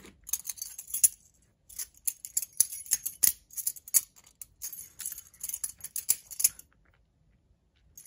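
A balisong trainer, the Bali Spoon, being flipped by hand: quick, irregular clicks and clacks of its metal handles swinging about the pivots and knocking together. The clicking stops about six and a half seconds in.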